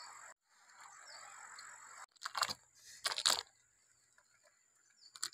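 Two short crunching, rustling bursts about a second apart, a couple of seconds in, from the snails and crabs in the wicker basket being handled over banana leaves, with a faint click near the end.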